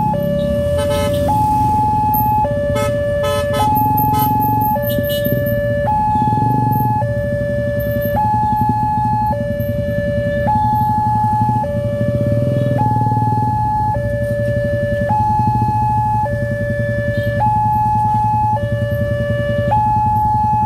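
WANTECH level-crossing warning alarm sounding from the loudspeaker on the signal post: an electronic two-tone that alternates evenly between a lower and a higher note, each held for a little over a second, warning that a train is coming. It runs over a steady low rumble, with a few sharp clicks in the first few seconds.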